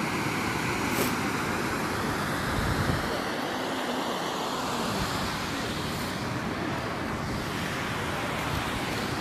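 Strong wind blowing across the microphone: a steady rushing noise that swells briefly about three seconds in.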